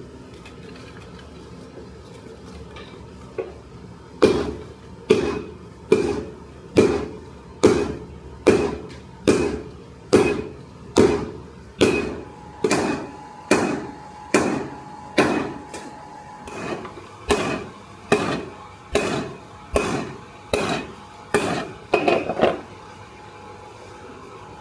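Hammer blows on steel over an anvil, about twenty of them at a steady pace of a little over one a second, starting about four seconds in, each with a short metallic ring.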